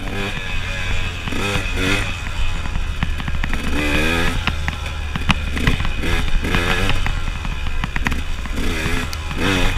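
KTM enduro motorcycle engine rising and falling in pitch in short throttle bursts about once a second as the bike is ridden over a dirt trail, with wind rumbling on the microphone and scattered sharp knocks from the rough ground.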